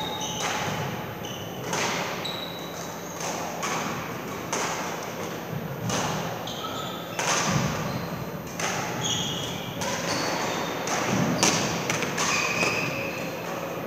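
Badminton doubles play: sharp racket strikes on the shuttlecock at irregular intervals, mixed with short squeaks of court shoes on the floor, all echoing in a large sports hall.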